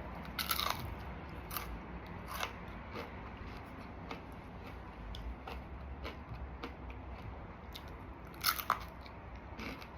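Close-up biting and chewing of crispy battered fried food: sharp crunches about half a second in, again near one and a half and two and a half seconds, with quieter chewing between and the loudest crunches near the end.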